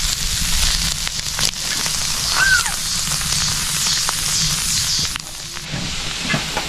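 Food frying and sizzling on a plough-disc pan over a wood fire, a steady hiss with faint ticks, while gusty wind rumbles on the microphone.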